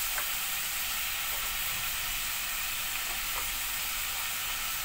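Chicken pieces and chopped tomatoes sizzling steadily in hot oil in a cooking pan, with a few faint small ticks.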